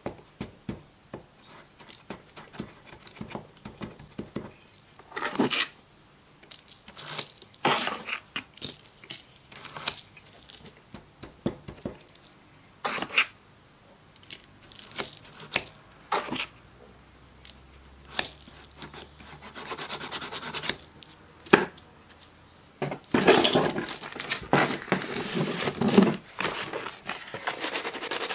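Sand being rammed into a small box with a wooden stick and scraped off with a metal blade: irregular taps, knocks and short scrapes. In the last few seconds, a longer stretch of paper rustling and crinkling.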